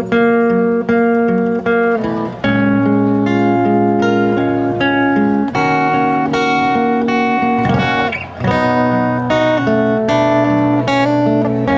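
Acoustic guitar playing a slow song intro, ringing chords struck about once a second.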